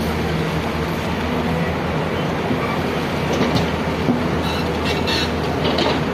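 Excavator's diesel engine running steadily under load, with several short metallic squeaks and clanks from about three and a half seconds in.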